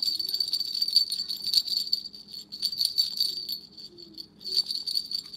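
Small jingle bells on a musical plush puppy toy's antlers jingling rapidly as the toy shakes its head, with a short pause about four seconds in before the jingling starts again.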